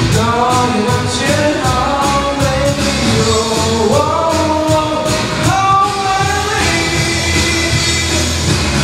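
A young man singing a Mandarin pop song into a handheld microphone, with a held, sliding vocal line over an accompaniment track with a steady drum beat.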